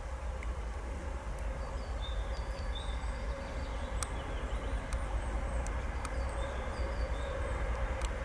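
ChME3 diesel shunting locomotive's six-cylinder engine running under load as it approaches with a freight train: a steady low rumble with a held drone, slowly growing louder.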